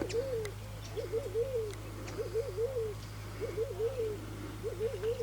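A dove cooing: a short wavering coo phrase repeated five times, about one a second.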